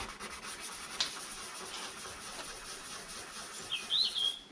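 Sandpaper rubbing back and forth by hand over the aluminium boot lid of a Rover P4, a steady light scratching as the edges of a filler patch are smoothed flat. A bird chirps near the end.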